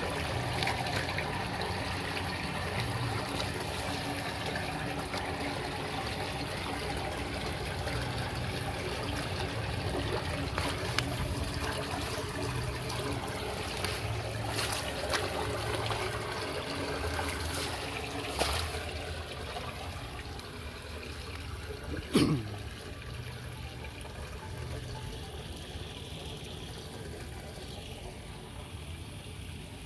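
Muddy water rushing and trickling through a freshly unclogged concrete culvert opening, quieter in the last third. About three-quarters of the way in, a brief sharp sound with a falling pitch stands out over the flow.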